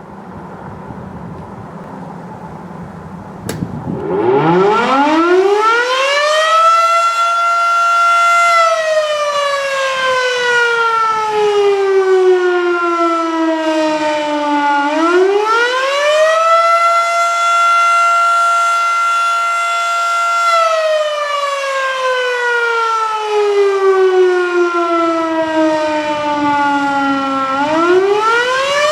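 Federal Signal Model 7 electro-mechanical fire siren, incredibly loud, winding up about four seconds in and then sounding its short attack cycle: each time it holds at the top, slides slowly down in pitch, then climbs quickly back up, repeating twice.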